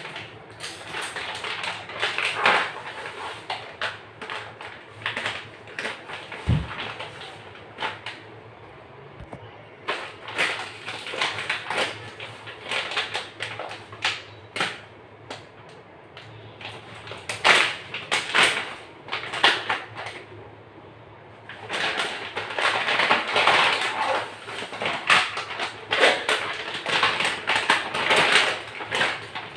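Glossy plastic packaging pouch crinkling and rustling in irregular bursts as it is cut with scissors and pulled open by hand. A single low thump about six and a half seconds in.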